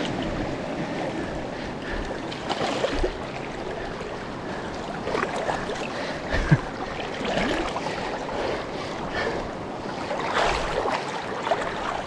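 Fast-flowing flooded river water rushing, with irregular splashes.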